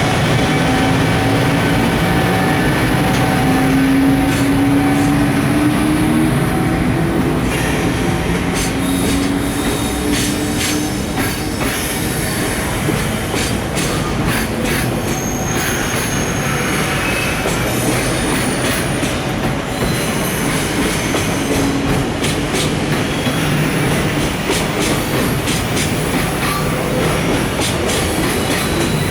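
Container freight train of Koki flat wagons rolling past as it pulls out of a station: steel wheels clicking over rail joints and squealing, over a steady rolling noise, with a rising whine in the first few seconds.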